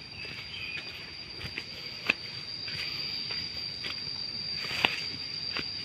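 Footsteps walking over soil and grass, with scattered light taps and two sharper clicks about two and five seconds in, over a steady high-pitched whine.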